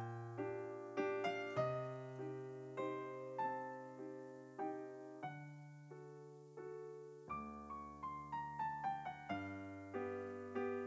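Background piano music: a slow melody of single struck notes over held bass notes, with a falling run of notes about two-thirds of the way through.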